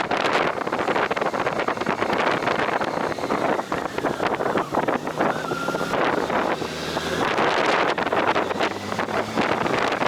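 Wind buffeting the microphone of a moving motorcycle, a loud, fluttering rush over faint vehicle noise underneath.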